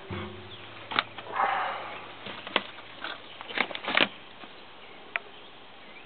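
A handful of sharp knocks and clicks, bunched in the first four seconds, with a brief rustle, as someone moves about inside a derelict truck cab strewn with leaves and debris. A single short high chirp comes a little after five seconds.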